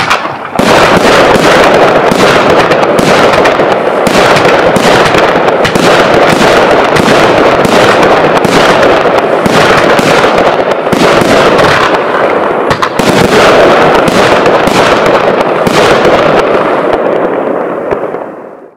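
Sky King 'Techno Color' 200-gram, 25-shot firework cake firing shot after shot in quick succession, very loud throughout, dying away near the end.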